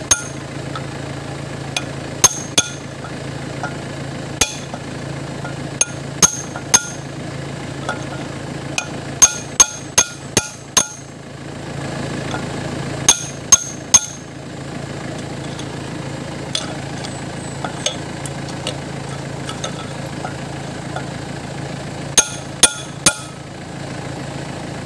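A steel bar, used in place of a hammer, striking a steel punch held against a truck's front wheel hub: sharp metal-on-metal clinks in irregular bunches of two to four, with a long pause in the second half. A steady low hum runs underneath.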